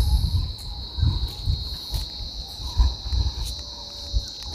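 A steady, high-pitched insect chorus shrilling without a break, under irregular low thumps and rumble.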